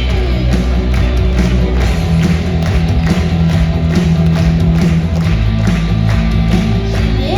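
Loud show music with a steady drum beat over a heavy bass line.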